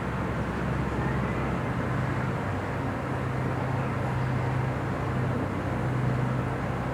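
Steady low machine hum with a constant drone under outdoor background noise.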